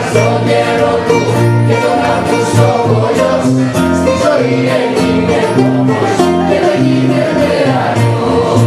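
Live Greek laïko band music: bouzoukia, guitar and bass guitar play an instrumental passage, a steady bass line under quick plucked melody notes.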